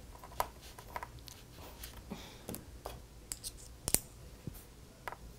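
Small clicks and scrapes of a small screwdriver working tiny screws in a MacBook Pro's aluminium case, and of its thin aluminium memory cover being handled, with one sharper metallic click just before four seconds in.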